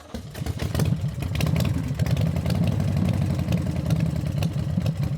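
Motorcycle engine idling with a fast, uneven pulsing beat.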